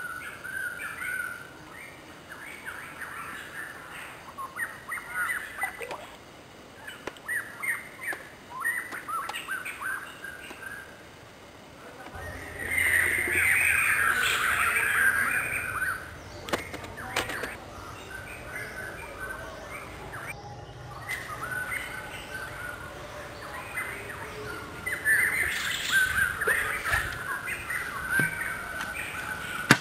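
Wild birds chirping and calling in many short notes, with a denser, louder bout of chirping near the middle and another toward the end.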